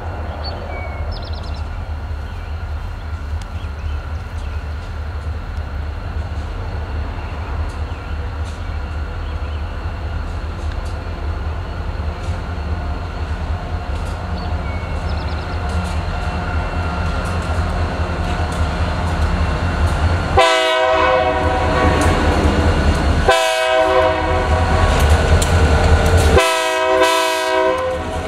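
Three EMD GP40-3 diesel locomotives approaching, the low rumble of their turbocharged 16-cylinder engines slowly growing louder. From about two-thirds of the way in, the lead unit's multi-chime air horn sounds the grade-crossing signal: two long blasts, a short one, then a long one as the locomotives draw level.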